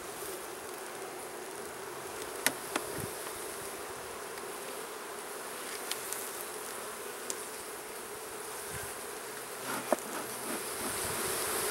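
Honeybee colony in an opened nuc box buzzing in a steady hum at one pitch, stirred up by the smoker: the bees are agitated, going berserk after being smoked. A few sharp taps sound about two and a half seconds in.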